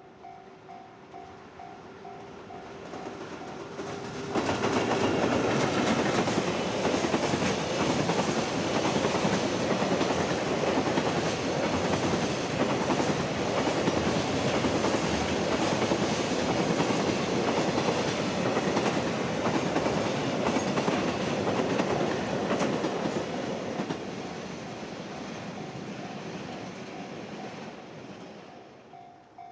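Electric freight train passing close: its arrival about four seconds in brings a loud, steady rush with wheels clattering over the rail joints for about twenty seconds, then dies away. A level crossing bell rings with an even pulse before the train arrives and again as it fades.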